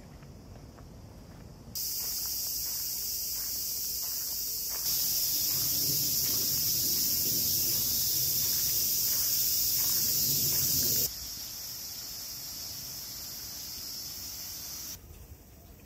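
Insects making a steady, shrill, high-pitched drone. It cuts in about two seconds in, gets louder about five seconds in, drops back about eleven seconds in, and stops abruptly near the end.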